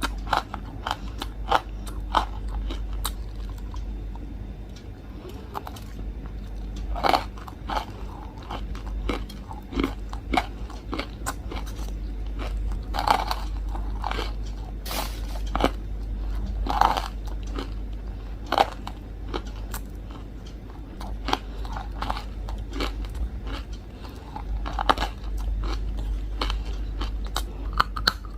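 Close-up biting and chewing of hard, crunchy Nakumatt chunks: irregular sharp crunches, a few louder bites standing out, over a steady low hum.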